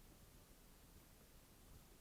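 Near silence: faint steady hiss with a little low rumble.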